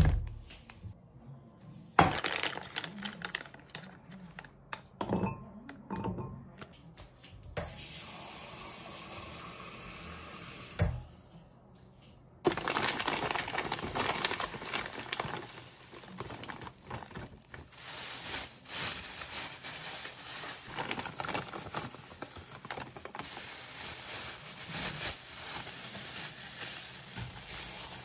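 Thin plastic bags and packaging crinkling and rustling as rice cakes are handled and bagged, with scattered clicks and knocks early on. A steady rush of noise runs for about three seconds in the middle.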